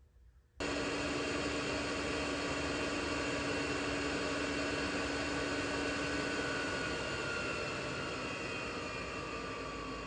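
Chinese diesel air heater running on waste oil thinned with diesel: its blower and burner come in suddenly about half a second in with a steady rushing noise. From about two-thirds through, the fan's pitch falls and the sound slowly fades as the heater winds down, which goes with the fault shutdown shown on its panel.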